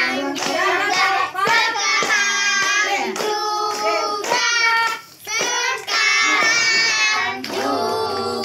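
A group of children and adults singing a birthday song together while clapping along.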